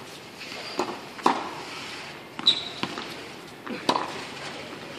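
Tennis balls being struck by rackets and bouncing on a hard court: about five sharp knocks, irregularly spaced.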